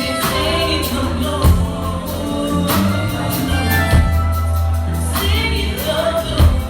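Live soul band playing an R&B song: bass and drums keep a slow groove under a melody line, in a wordless stretch between sung lines.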